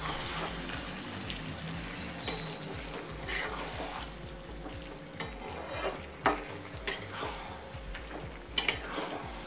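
Chicken pieces frying and sizzling in oil with spices while a spatula stirs them, with irregular scrapes and knocks of the spatula against the pan.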